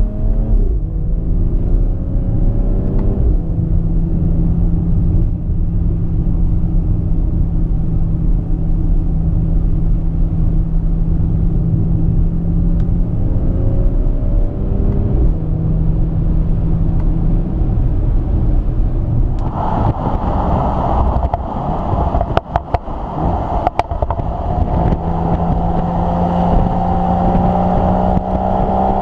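2018 BMW X3 M40i's turbocharged 3.0-litre inline-six running while driving, its pitch gliding up and down near the start and around the middle, then holding steady. About two-thirds of the way through the sound turns brighter and noisier, a few sharp cracks follow, and near the end the engine note climbs steadily under acceleration.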